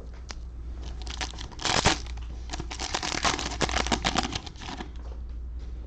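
Cellophane wrapper of a Panini Mosaic football cello pack being torn open and crinkled: a loud rip about two seconds in, then a couple of seconds of crackling.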